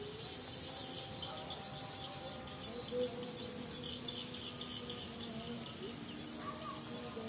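Large flock of small emprit (munias) chirping and twittering continuously in a cornfield as they settle to roost, with many overlapping high calls and one short louder note about three seconds in.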